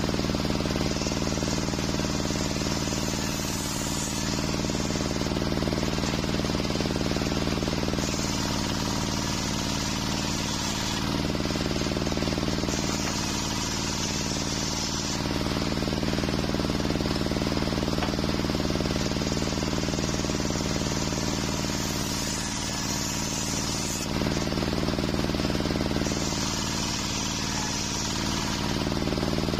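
Large circular saw blade of a homemade sawmill bench running steadily while ripping waru wood planks. The steady machine hum carries a cutting noise that swells and fades every few seconds as each board passes through the blade.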